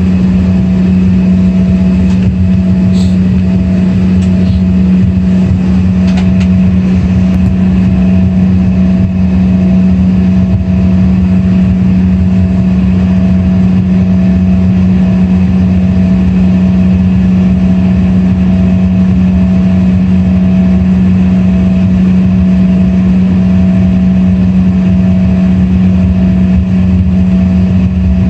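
Embraer ERJ-135 regional jet's turbofan engines at taxi power, heard from inside the cabin: a loud, steady drone with a strong low hum and a fainter higher tone that pulses regularly.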